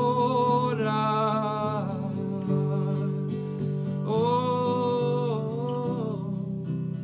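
A man singing in Swedish, drawing out two long held notes, the first at the start and the second from about four to six seconds in, over his own strummed acoustic guitar.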